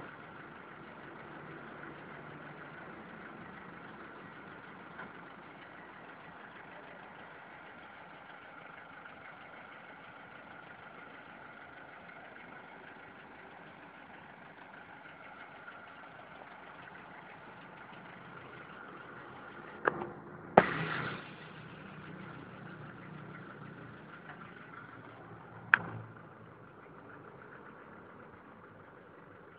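A vehicle engine idling steadily, with a sharp knock about twenty seconds in, a short louder burst just after it, and another sharp knock near twenty-six seconds.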